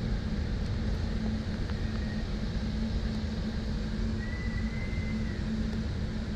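Hurricane wind and rain blowing hard against the house, a steady heavy rumble with a low hum underneath. A faint high whistle rises and falls for about a second, about four seconds in.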